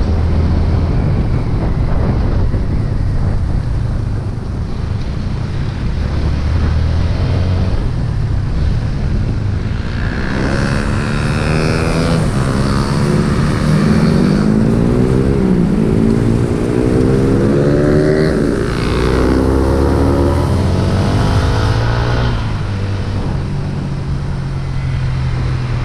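Motorcycle engine running at speed with wind rumbling on the microphone. About ten seconds in it revs hard several times in a row, its pitch climbing and dropping back with each gear change, then settles to a steady run near the end.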